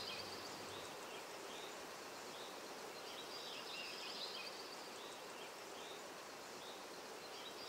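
Faint steady background hiss with small birds chirping briefly every second or two.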